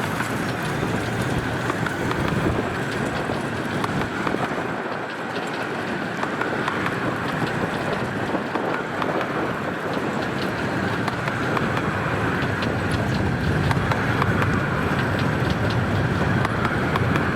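A 15-inch gauge miniature railway train running along the track: a steady rumble of wheels and running gear with many small clicks and rattles, getting a little louder toward the end.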